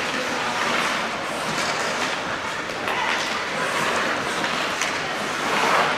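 Hockey skate blades scraping across rink ice: a steady hiss that swells about three seconds in and again near the end.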